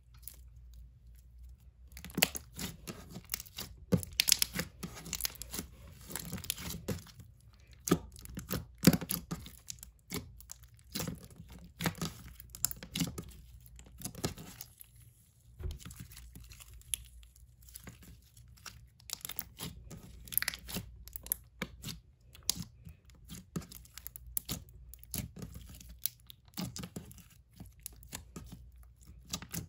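Clear amber store-bought slime being stretched, folded and squished by hand, giving irregular sticky clicks and crackles that start about two seconds in.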